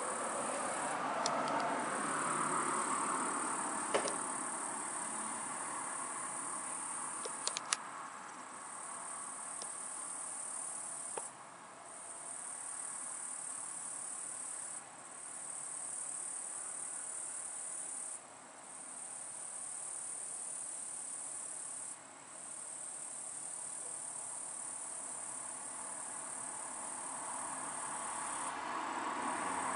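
Crickets trilling steadily at a high pitch, with short breaks every few seconds, over a faint distant rumble of traffic. No thunder is heard, and there are a couple of sharp clicks in the first eight seconds.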